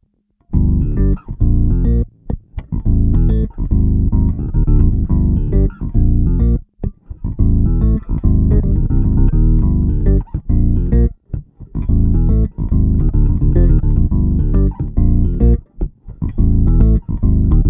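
Electric bass guitar played through an MXR M280 Vintage Bass Octave pedal: a loud riff of short, choppy notes with a heavy low end, starting about half a second in after a moment of silence.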